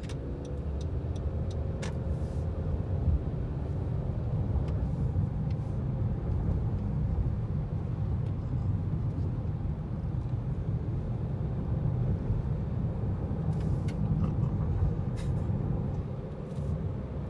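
Car driving: steady low rumble of road and engine noise.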